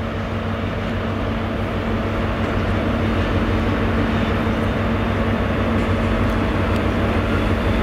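Diesel engines of an approaching multiple-unit passenger train and a Class 56 freight locomotive hauling wagons alongside it: a steady low engine drone with a held hum, slowly growing louder.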